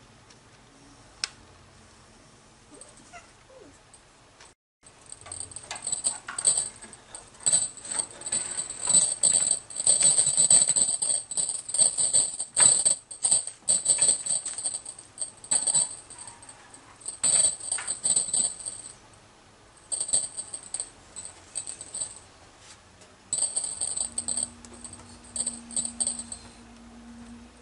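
A small bell on a cat toy jingling as the toy is shaken and dangled, in on-and-off bursts that are loudest about halfway through.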